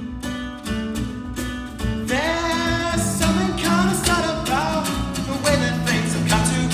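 Live song led by acoustic guitar playing a steady rhythmic pattern over a low bass line. About two seconds in, a sliding, wavering melody line joins on top.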